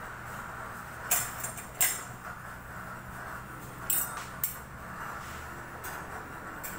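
Four sharp clinks of kitchen dishes or utensils being handled, in two pairs a couple of seconds apart, over a steady low hiss from the lit gas burner under the oiled pan.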